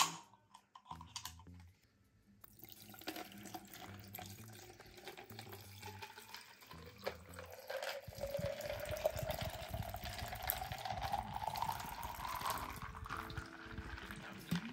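Iced tea poured from a tall can into a plastic cup. It starts a few seconds in, and the splashing stream rises steadily in pitch as the cup fills.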